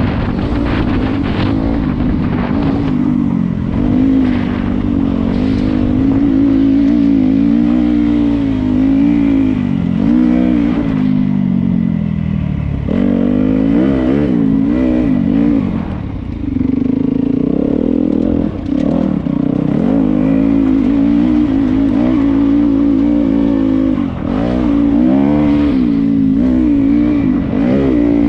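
Dirt bike engine heard from the bike itself while riding a trail, its pitch rising and falling constantly with the throttle, with several brief dips where the throttle is closed.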